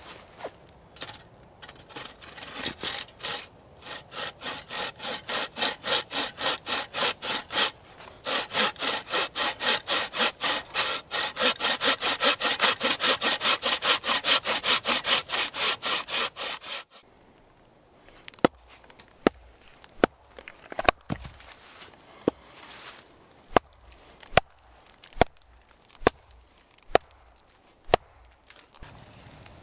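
Wooden-framed bucksaw cutting through a log in quick, steady rasping strokes, stopping about 17 seconds in. Then a wooden mallet knocks on a small axe driven into a log, about a dozen sharp knocks a little under a second apart.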